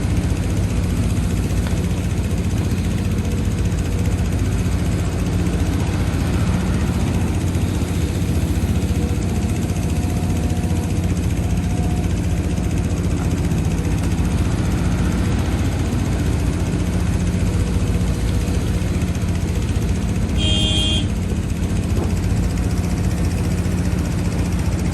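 Heavy diesel earthmoving machinery running steadily. About twenty seconds in there is a short high-pitched beep.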